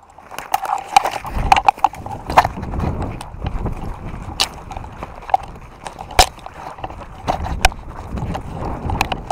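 Irregular run of sharp knocks and clatter, like quick footsteps and equipment knocking on a hard indoor floor.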